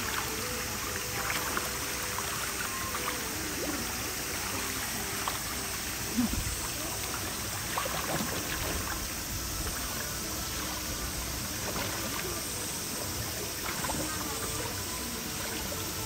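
Shallow pool water splashing and trickling as children move through it, over a steady rush of running water, with faint voices. A single low thump about six seconds in.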